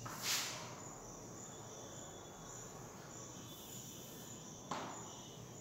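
Chalk scraping on a blackboard as lines are drawn: a short, faint scratchy stroke just after the start and another near the end, over a faint steady background with a thin high chirping.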